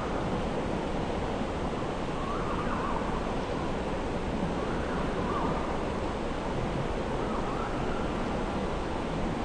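Steady rushing of flowing river water, with faint short calls every two or three seconds.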